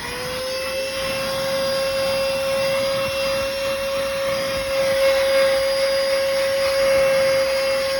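Cordless handheld car vacuum cleaner running, a steady high motor whine over a rush of air, its loudness growing over the first second as it comes up to speed.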